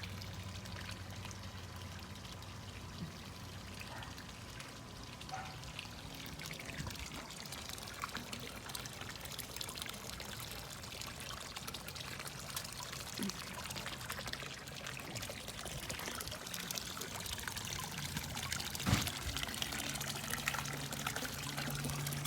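Water pouring and trickling steadily, with one short knock near the end.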